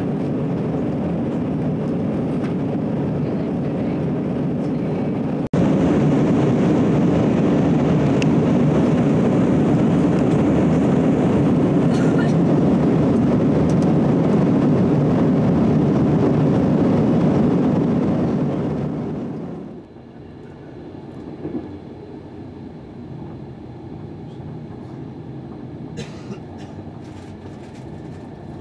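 Steady cabin noise of a jet airliner climbing after takeoff: engine and airflow noise, stepping louder about five seconds in. About two-thirds of the way through it gives way to the quieter running rumble of a passenger train at speed, with a few sharp clicks near the end.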